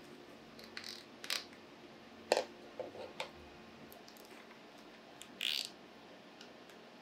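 Hands handling a plastic engine wiring harness and its clips: a few faint scattered clicks, the sharpest about two and a half seconds in, and a short rustle about five and a half seconds in.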